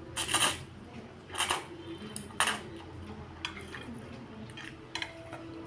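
A person slurping noodles three times in quick succession, short hissy sucks about a second apart. Later come a few light clicks of chopsticks against a metal bowl.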